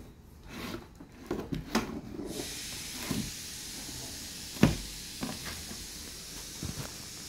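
A few knocks and clicks of things being handled, the loudest one about halfway through, over a steady hiss that starts about two seconds in.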